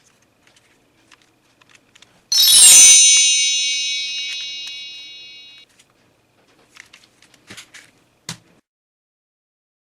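A bright metallic chime rings out suddenly and fades over about three seconds before stopping abruptly. A few light clicks and taps follow.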